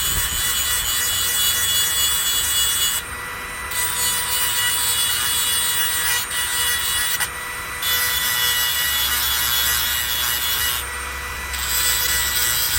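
Hedge trimmer blade teeth being sharpened: a harsh grinding rasp in long passes of three to four seconds, with short breaks about 3, 7 and 11 seconds in. A steady thin whine runs underneath, even through the breaks.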